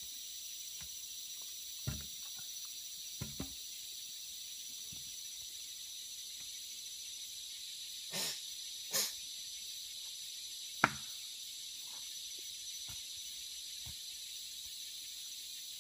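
Steady high-pitched insect chorus, with a few scattered knocks and thuds over it; the sharpest knock comes about eleven seconds in.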